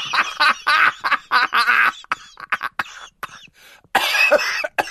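A person coughing and laughing in a run of short bursts, with a louder burst near the end.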